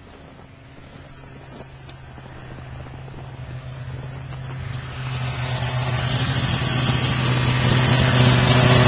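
Snowmobile engine running steadily, growing steadily louder as the sled approaches and passes close by.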